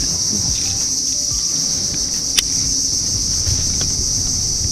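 Steady high-pitched insect-like buzz, with low wind rumble on the microphone and a single sharp click about two and a half seconds in.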